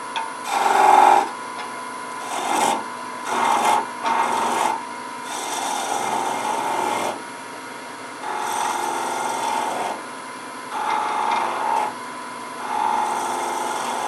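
Wood lathe running with a steady hum while a chisel cuts into the spinning wooden pen blank in about nine short passes, each a rough scraping hiss. The bead is being tapered down to a point before the pen is parted off.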